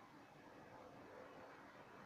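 Near silence: only a faint, steady background hiss.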